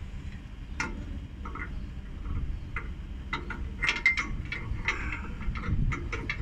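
Irregular metallic clicks and ticks of a hand tool working an air-brake pipe fitting on a truck chassis, over a low background rumble.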